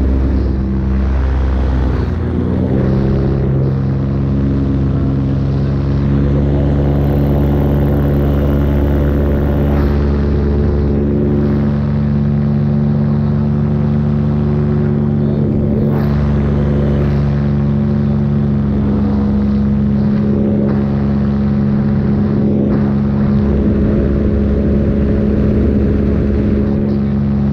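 Paramotor engine and propeller running steadily, a loud drone with a slight shift in pitch about two seconds in.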